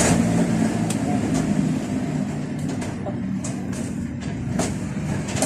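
An engine running steadily in the background, with scattered sharp clicks and ticks over it.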